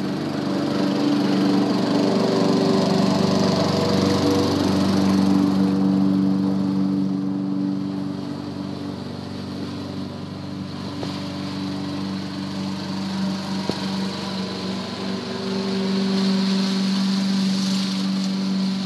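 Walk-behind gas lawn mower engine running steadily under mowing, louder in the first few seconds and again near the end, fainter in the middle.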